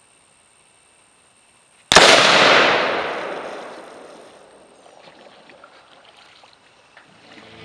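An explosive charge set on a tree detonates with one sudden loud blast about two seconds in, its rumble and echo dying away over the next two or three seconds.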